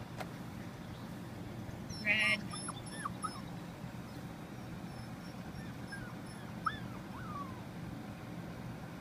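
Golden retriever puppies whimpering: one loud yelp about two seconds in, then several short, high whimpers and yips.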